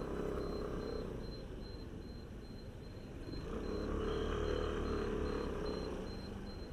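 A vehicle's engine running while riding, with road noise: a steady low hum that swells louder for a couple of seconds past the middle, then eases off.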